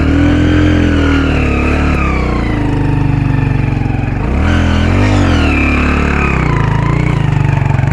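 Motorcycle engine pulling up a steep dirt-trail climb, its revs rising and falling with the throttle, with one quick rise and fall in pitch about halfway through.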